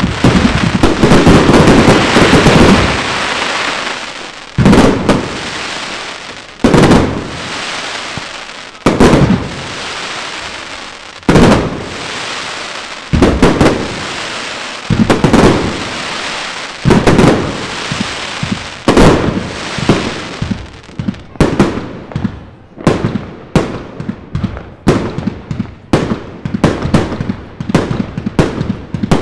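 Fireworks going off: a dense barrage of bangs and crackling at first, then single heavy bangs about every two seconds, each trailing off in crackle. In the last third comes a quick run of sharp bangs, several a second.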